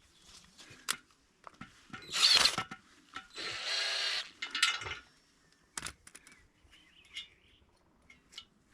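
Work noises from setting and packing a fence pole: a loud scraping burst about two seconds in, a steadier grinding burst lasting about a second shortly after, and scattered clicks and knocks.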